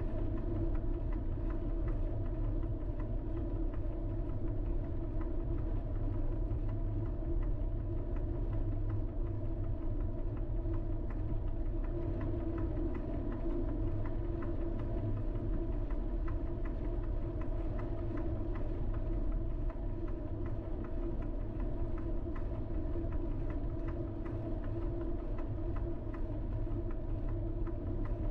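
Steady running noise of a vehicle driving at an even pace: a low engine and road rumble with a constant drone, unchanging throughout.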